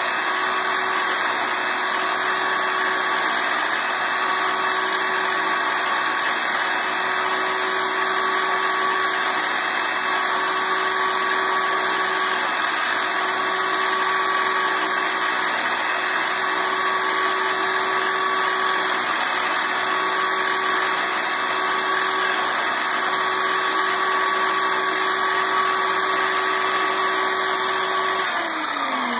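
Belt sander running steadily with a constant whine while a pine 2x4 block is sanded against its upright belt. Near the end it is switched off and the whine falls in pitch as the motor and belt spin down.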